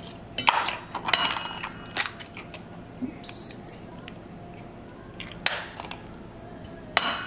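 Eggs being cracked on the rim of a stainless steel mixing bowl: a series of sharp taps, some with a brief metallic ring, as the eggs go into the ground meat.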